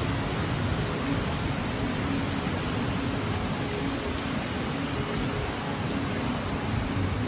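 Torrential rain pouring down steadily in a dense, even hiss.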